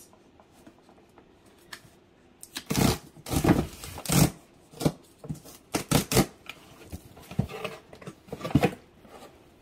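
Cardboard shipping box being torn open by hand: after a quiet start, a series of rasping rips and scrapes as the tear strip is pulled off and the flaps are pushed open, loudest around the middle.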